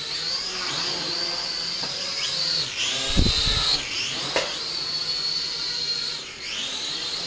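Small quadcopter drone's motors whining high, the pitch dipping and climbing back several times. A thump about three seconds in and a sharp click about a second later.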